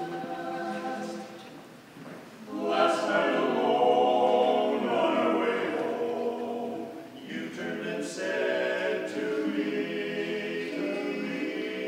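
Male barbershop quartet singing a cappella in close harmony. The chords are soft for the first two seconds, then swell louder about two and a half seconds in, dip briefly near seven seconds and build again.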